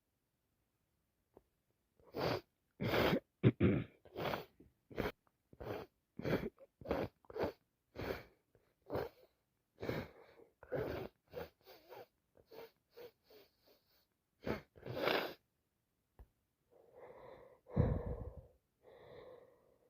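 A woman with a wet cold sneezing and gasping over and over, a fast string of about twenty short, sharp bursts, then quieter heavy breathing near the end.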